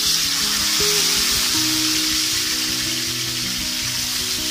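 Whole pomfret sizzling steadily as they shallow-fry in hot oil in a frying pan. Background music with held, stepping notes plays over it.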